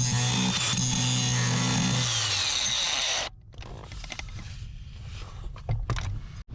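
Handheld power tool running steadily on metal, then winding down and stopping a few seconds in, followed by a few light knocks.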